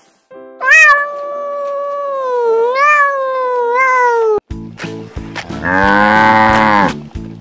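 A grey Scottish Fold kitten gives one long, wavering meow lasting nearly four seconds. After it, a cow moos once over background music with a beat.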